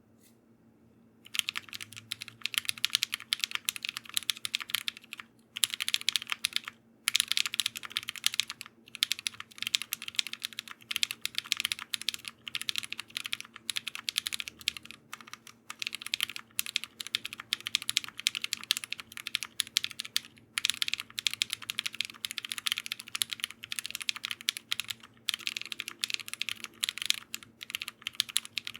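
Fast continuous typing on a custom mechanical keyboard: a Velocifire Sun68 with lubed Kingfisher linear switches on a polycarbonate plate, GMK keycaps and foam dampening, giving a steady stream of soft clacks. Typing starts about a second in and pauses briefly a few times.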